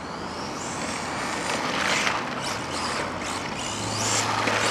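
Turnigy 1/16 scale RC rally car's brushless motor whining, rising in pitch several times as the car accelerates at full throttle, over a noisy hiss.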